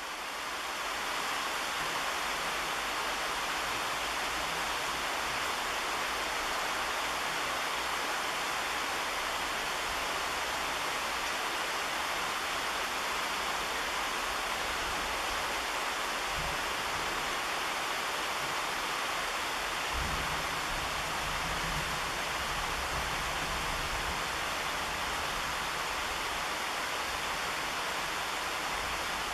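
Steady rain falling on the leaves of a tree: an even hiss of many drops, with a faint low rumble about two-thirds of the way through.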